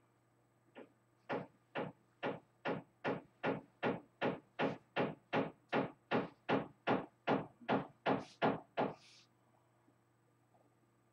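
Hammer blows from building works: about twenty evenly spaced knocks, a little over two a second, that stop about nine seconds in.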